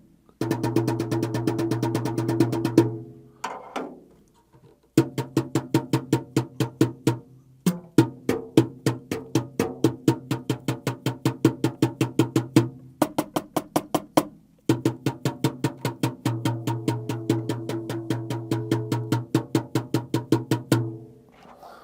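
Fast, even strokes on mesh-headed acoustic drums (Jobeky mesh heads on a Yamaha Stage Custom kit), with the shells ringing steadily under the hits. The playing comes in runs: it stops about three seconds in, starts again about two seconds later, breaks briefly in the middle, and stops just before the end.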